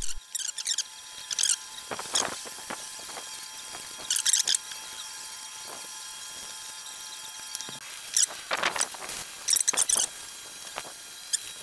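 Gloved hand and pad rubbing the rusty steel tube of a mill drill wet with diluted citric acid: short runs of squeaky scrubbing strokes, a few times, with pauses between.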